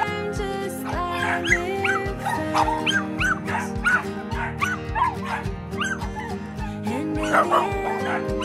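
Background music with a steady beat, over a small dog yapping rapidly and repeatedly from about a second in, with a flurry of yips near the end.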